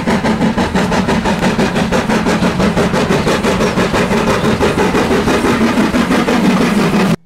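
Steam locomotive approaching with its train, its exhaust chuffing in a fast, steady rhythm of several beats a second; the sound cuts off suddenly near the end.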